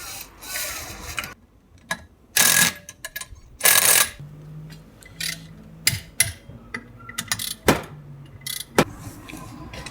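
Hand-tool work on a car's wheel hub and suspension: sharp metallic clicks and clanks, with a few short noisy bursts and a low steady hum partway through.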